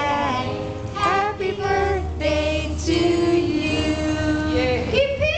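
Women's and children's voices singing together, with long held notes.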